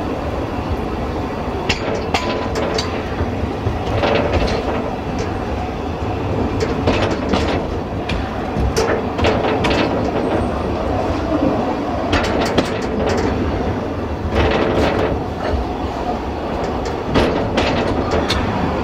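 Train carriage running along the track: a steady low rumble with irregular sharp knocks and clicks as the wheels pass over rail joints.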